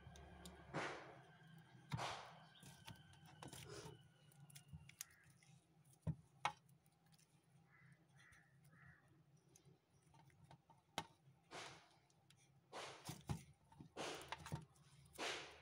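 Thick pink slime being kneaded and pinched by hand, giving faint, irregular wet squelches and small crackling pops, with a cluster of them near the end.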